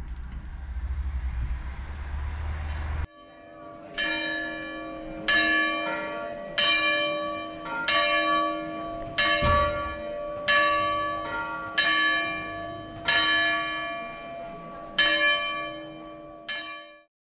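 A low rumble of wind on the microphone for about three seconds, then it cuts off and a church tower bell is struck about ten times at an even pace, a little over a second apart, each stroke ringing on into the next. The last stroke is cut short near the end.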